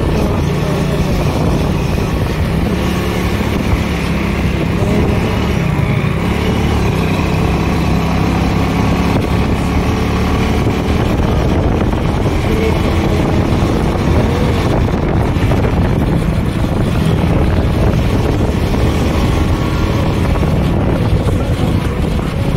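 Motorcycle engine running while riding, with a steady low rumble from the ride and engine tones rising and falling slightly as the speed changes.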